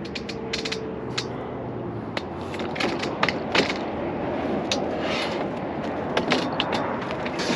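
Irregular clicks, light knocks and scraping of hands handling hardware and fittings, over a steady background noise. The clicks come more often from about a third of the way in.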